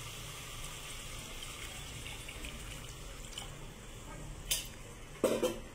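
Water being poured into a pot of cooked chicken-korma masala to thin the gravy, a steady splashing hiss. A sharp click about four and a half seconds in and a short knock near the end.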